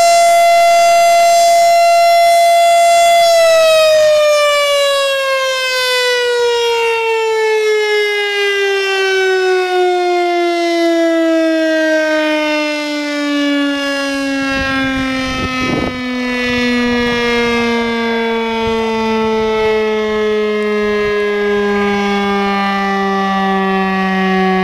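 STH-10 fire siren sounding a steady high tone, then after about three seconds winding down in a long, slow, falling wail that keeps sinking in pitch.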